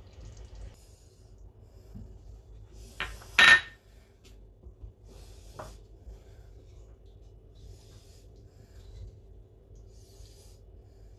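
A ceramic plate set down on the counter with a loud clatter about three seconds in, then a wooden spoon scraping and knocking against a stainless steel pot as stew is served out, in a few short faint scrapes.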